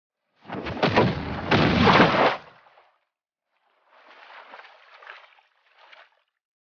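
Water rushing and splashing as floating logs skim fast across a lake: a loud surge lasting about two seconds, then quieter rushing water twice more.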